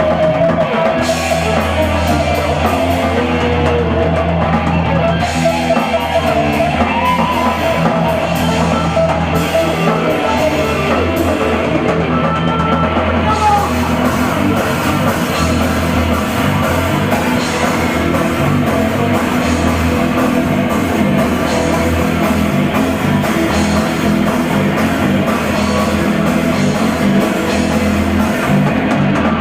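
Live heavy metal band playing at full volume: distorted guitars and a drum kit in a dense, unbroken wall of sound.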